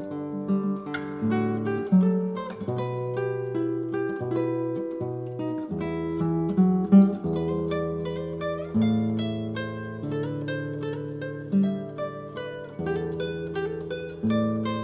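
Instrumental music on acoustic guitar: a plucked melody over bass notes that change every second or two, with some strummed chords.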